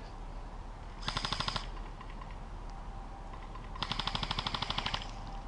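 Airsoft electric guns firing on full auto: two rapid bursts of evenly spaced shots, a short one about a second in and a longer one of about a second near four seconds in.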